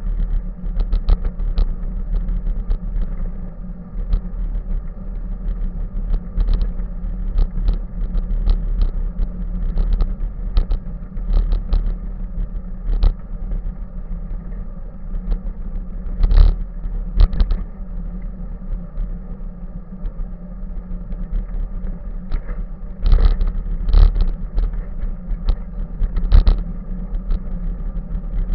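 Bicycle riding along a paved path, heard from a camera mounted on the bike: steady wind and road rumble on the microphone, with frequent short rattles and knocks as the bike jolts over the surface, heavier about halfway through and again near the end.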